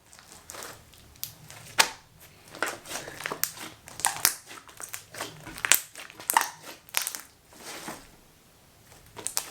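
Slime being stretched and squeezed by hand, giving irregular sticky pops and crackles, with a short pause near the end.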